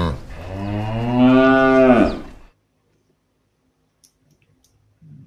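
Cow mooing: the end of one low call, then a second, longer call that rises and falls in pitch and stops about two and a half seconds in. A few faint clicks near the end.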